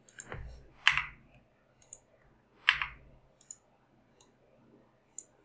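Computer mouse clicks: a scatter of light clicks, with two louder ones about a second in and near three seconds in.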